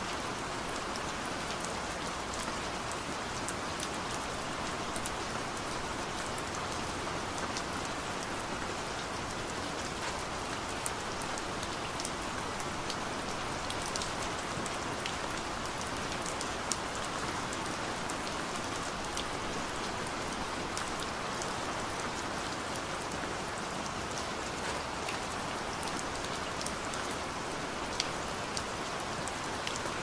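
Steady rain falling, an even hiss with many separate drops ticking sharply through it.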